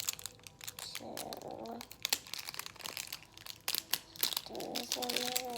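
Packaging of a surprise Easter egg crinkling and crackling in irregular bursts as it is pulled and torn at by hand.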